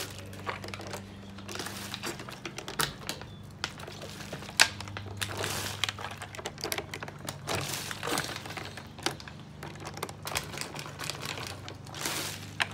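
Irregular crackling and clicking of thin plastic water bottles being gripped and swirled, with one sharper click about four and a half seconds in.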